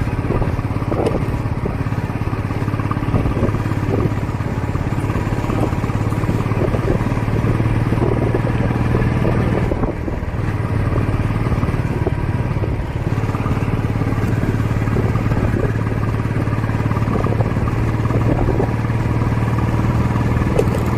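Royal Enfield Bullet single-cylinder motorcycle engine running steadily through its stock exhaust.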